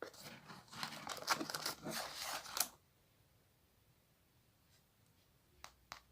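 Crisp macaron shells crunching and crackling close to the microphone as they are bitten and chewed, for about three seconds. Then it goes quiet except for a couple of sharp clicks near the end.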